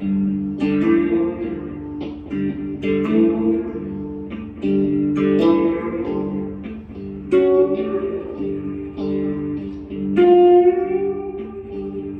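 Guitar played with a slide: plucked notes and chords every second or two, each ringing out and fading, some gliding up in pitch.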